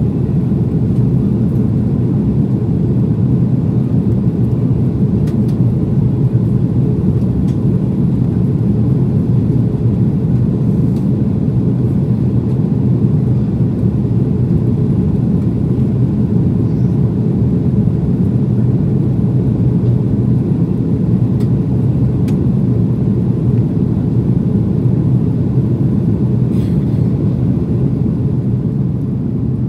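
Airbus A330-200 airliner in flight: its engines and the airflow make a steady low rumble that does not change, with a few faint ticks above it.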